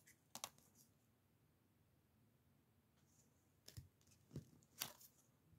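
Near silence with a few faint plastic clicks as rigid plastic card holders are handled and set down on a table: two just after the start, three more in the second half.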